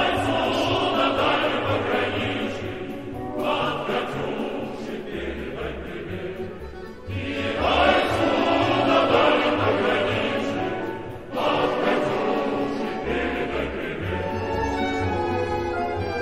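Background music: a large male choir singing with orchestra, in long phrases that swell and fall back several times.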